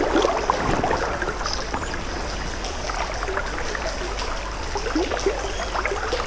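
Stream water flowing past, a steady rush with small splashes and trickles close by.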